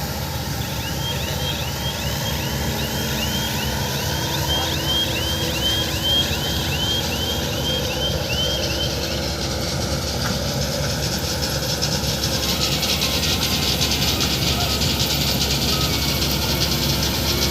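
John Deere W70 combine harvester running steadily under harvesting load. A run of short, evenly repeated chirps sounds over it in the first half. In the last third the machine grows louder with a fine rattling hiss.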